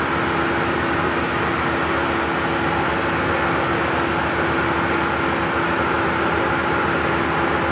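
Air pump running steadily, inflating a rubber ship-launching airbag through its hose: a constant hum over a steady hiss.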